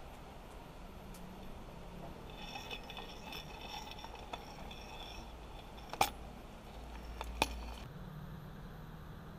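Kitchenware clinking: light ringing clinks, then two sharp knocks about a second and a half apart.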